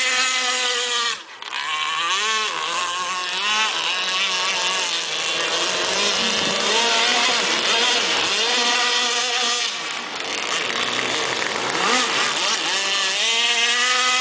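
Small gas-powered two-stroke engines of RC speedboats running at high revs. Their high buzzing pitch rises and falls again and again as the boats pass and turn, with a brief drop about a second in.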